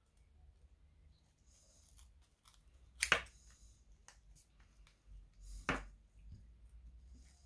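Small scissors snipping through a doll's rooted hair close to the scalp: two sharp snips, one about three seconds in and one about two-thirds of the way through, with fainter ticks and rustles of the hair between them.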